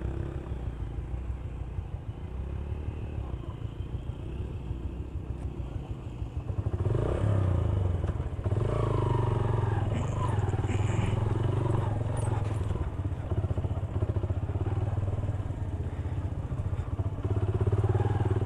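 Motorcycle engine running as the bike is ridden slowly over loose rocks, louder from about seven seconds in as the throttle opens.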